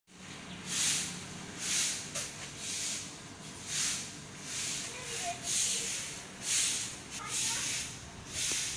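Broom sweeping pavement: a scratchy swish repeating about once a second in an even rhythm.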